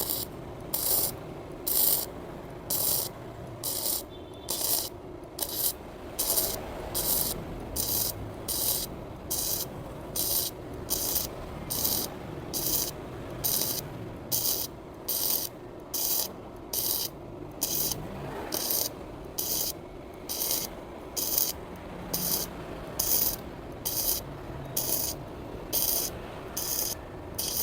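Sekko MIG 250 welder doing gasless flux-core MIG welding on thin steel at about 120 A. The arc crackles in short, evenly repeated bursts, about one a second, as the weld is laid in stitches.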